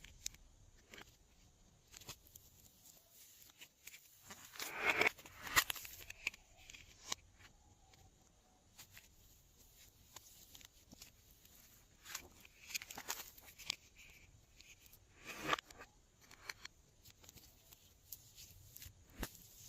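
Glossy slime being worked by hand, giving scattered soft sticky clicks and crackles, with louder clusters of them about five seconds in and again near fifteen seconds.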